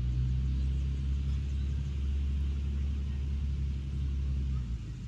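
Low, steady engine rumble that cuts off suddenly near the end.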